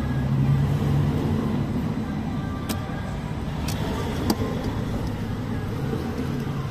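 Low, steady rumble of a motor vehicle's engine running, swelling a little near the start and again near the end, with three short sharp clicks about midway.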